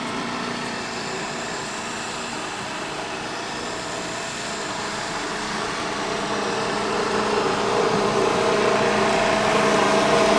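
Toro Greensmaster walk-behind reel mower running steadily as it cuts a putting green. It gets louder over the second half as it comes closer.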